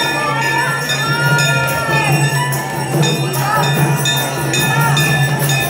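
Hanging brass temple bell rung over and over in quick strikes, with a crowd's voices singing together and a steady low hum underneath.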